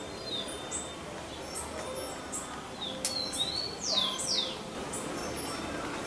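Birds chirping and calling: short high chirps throughout, with a few falling whistled calls around three to four seconds in. A sharp click sounds about three seconds in.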